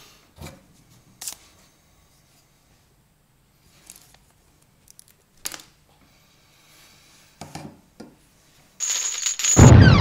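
Scattered light clicks and clinks a second or two apart, small hard objects being handled or set down. Music starts loudly near the end.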